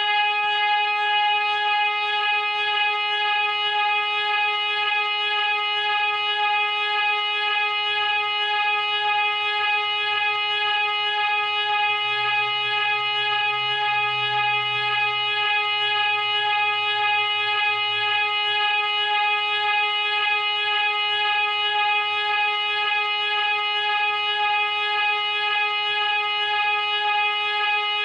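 The "eh" sound effect: a single buzzy, horn-like tone held at one unchanging pitch without a break.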